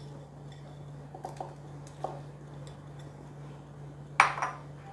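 Cauliflower florets tipped from one glass bowl into a glass bowl of batter, with a few soft knocks of glass against glass, then one sharp glass clink about four seconds in as the emptied bowl is set down. A steady low hum runs underneath.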